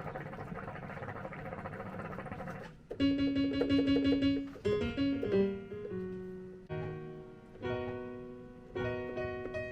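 Playback of a produced beat: a dense, textured opening for about three seconds, then keyboard chords in an electric-piano sound, struck in a repeating pattern about once a second.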